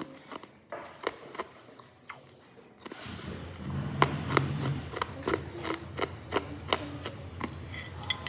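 Hard ice being bitten and chewed close to the microphone: irregular sharp cracks and crunches, faint and sparse at first and louder and quicker after about three seconds. A low steady hum comes in at that point.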